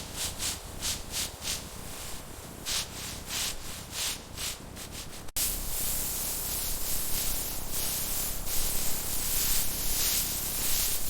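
Rhythmic rubbing strokes across a surface, about two or three a second. About five seconds in they cut off suddenly to a steady, louder hiss.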